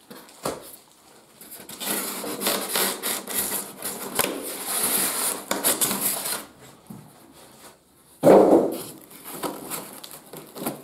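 Polystyrene packing insert rubbing and scraping against a cardboard box as it is worked loose and lifted out, with a louder bump a little after eight seconds in and light plastic-bag rustling near the end.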